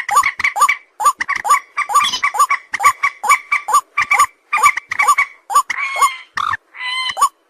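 A fast run of short, high-pitched animal calls, about four a second, each dipping in pitch. A few longer drawn-out calls come near the end.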